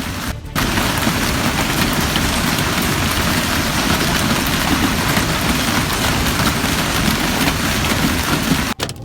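Hail pelting down hard in a dense, steady hiss and clatter; it comes in after a brief break at the start and cuts off suddenly near the end.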